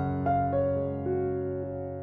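Background music: soft piano or electric-piano notes held and changing slowly, fading a little toward the end.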